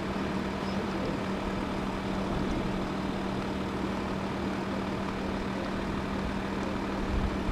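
A steady mechanical hum with one constant low tone and a low rumble, like an idling engine or machine running off-picture.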